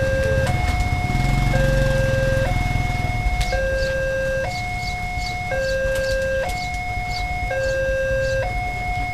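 Railway level-crossing warning alarm sounding two steady tones that alternate, higher then lower, each lasting about a second, signalling that a train is approaching. A low rumble sits under it for the first few seconds, then fades.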